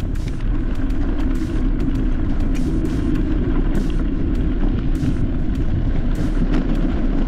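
A vehicle running steadily over rough ground: a low, even rumble with frequent irregular knocks and rattles.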